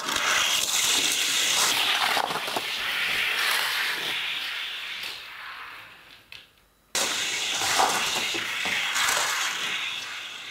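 Die-cast toy cars rolling fast down a plastic race track, a rushing rattle that starts at the release and slowly fades as they run away. It cuts off suddenly a little past halfway, then comes back and fades again.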